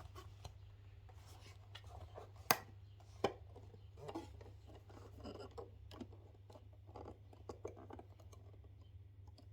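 Hands working the panels of a home theater speaker housing back together: faint scraping and rubbing with a few sharp clicks, the loudest about two and a half seconds in and another just under a second later.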